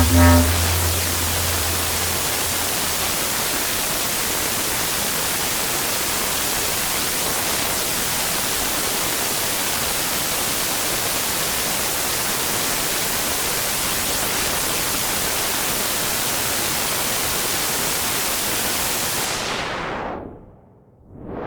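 Steady hiss of synthesizer noise from Arturia's Buchla Easel, at an even level. Near the end the highs are swept away as a filter closes down and the sound dips, then the filter opens again. A pulsing low synth tone fades out just after the start.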